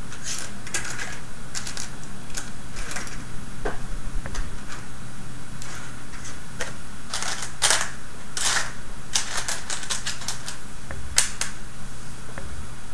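Small plastic kit parts clicking and clattering as they are picked through and sorted by hand: irregular light clicks, busiest about seven to nine seconds in, over a steady low hum.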